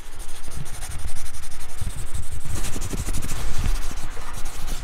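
Logo-reveal sound effect: a continuous gritty, crackling rush of noise over a deep low rumble.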